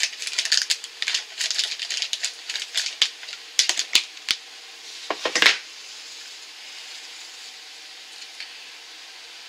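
Plastic makeup-wipe packet crinkling and crackling as a wipe is pulled out, a busy run of sharp crackles that ends about five and a half seconds in with one louder rustle.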